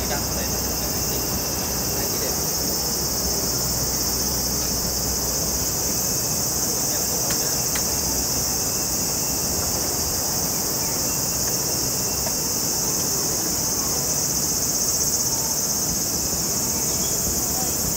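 Steady, high-pitched insect chorus that keeps up without a break, over a faint low hum.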